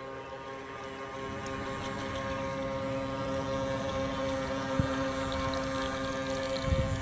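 Motor of a 1/8 scale wooden racing runabout R/C boat running at a steady pitch as the boat passes close, growing louder. A few low thumps near the end.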